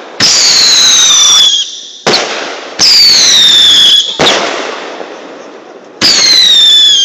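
Consumer fireworks cake firing whistling shots. Three times, a loud whistle starts suddenly, falls in pitch over about a second and ends in a sharp bang.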